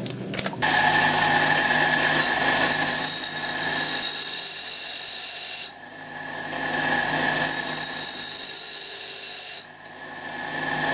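Tool and cutter grinder running with a steady whine while a twist drill is held by hand against the wheel's corner to thin its web and narrow the chisel point. There are two grinding passes of about three and two seconds, each adding a sharp hiss, with the drill lifted off between them.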